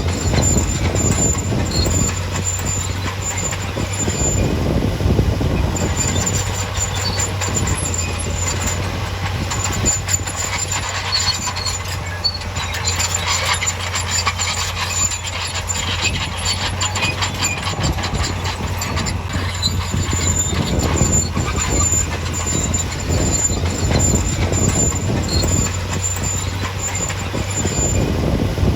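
Heavy diesel earthmoving machine running steadily, with continuous metallic clanking, clicking and squeaking over its low engine hum.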